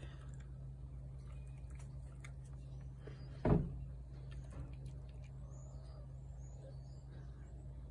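A cat chewing wet food from a plate: faint scattered chewing clicks over a low steady hum, with one dull thump about three and a half seconds in. A few faint high chirps come near the end.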